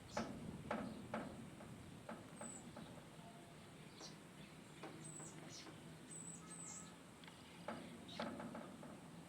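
Small birds calling: a scattered series of short, sharp chirps and thin high notes, loudest near the start and again near the end.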